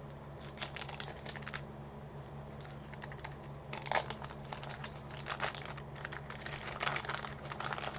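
Wax-paper wrapper of a 1990 Topps football card pack crinkling and crackling as it is torn open and peeled back by hand, in several short spells of quick crackles. A steady low hum runs underneath.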